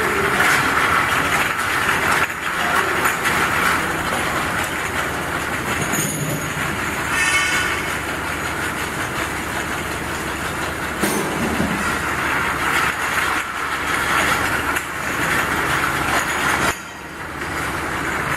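Automatic glass bottle washing machine running with a steady mechanical noise. A short high-pitched squeal comes about seven seconds in.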